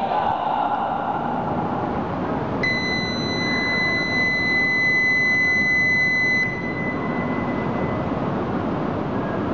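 Platform buzzer at a Shinkansen station sounding one steady high tone for about four seconds. It starts nearly three seconds in and cuts off suddenly, its echo lingering briefly. Under it runs the steady rumble of the station with the E2 series train standing at the platform.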